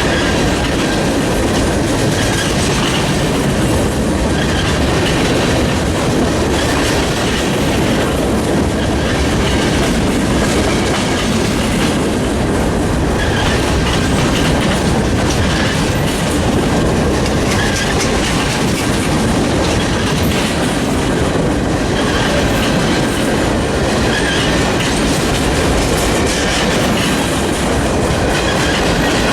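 Freight train cars rolling past, wheels clattering steadily over the rail joints.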